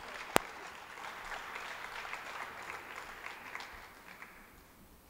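An auditorium audience applauding, the clapping thinning and dying away near the end. One sharp, loud knock about half a second in.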